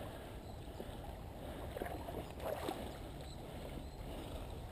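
Water of a shallow, clear creek running and lapping, over a steady low rumble.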